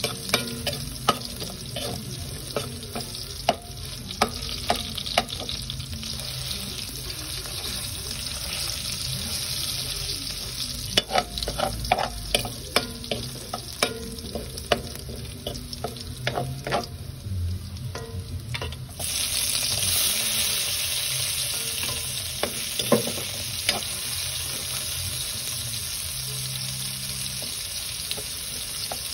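Chopped garlic frying in oil in an aluminium wok, sizzling steadily, while a metal spatula stirs and scrapes it with frequent sharp clinks against the pan. About two-thirds of the way through the sizzle suddenly grows louder and brighter, as chopped red onion goes into the hot oil.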